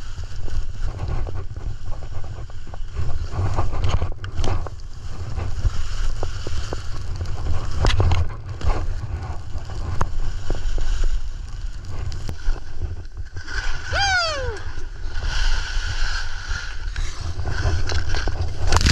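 Skis running and carving over packed snow, with heavy wind buffeting on the action camera's microphone and scattered clicks of the skis and poles. About fourteen seconds in, a brief tone slides down in pitch.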